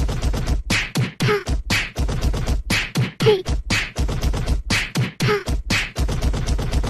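Music: a fast, steady percussive beat with a short falling note about once a second.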